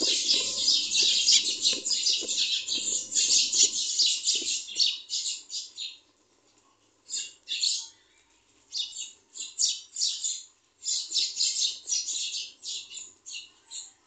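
Pencil scratching on paper in quick back-and-forth strokes as lines are drawn, steady for the first half, then in shorter runs with a few brief pauses.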